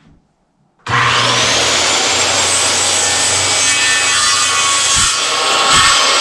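An electric power tool starts about a second in, its motor whine rising as it spins up, then cuts steadily and loudly into maple wall boards.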